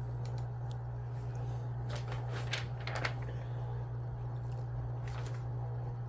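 A typewriter's keys and mechanism clicking a few times, sparse and irregular, with a small cluster of clicks about two to three seconds in, over a steady low hum.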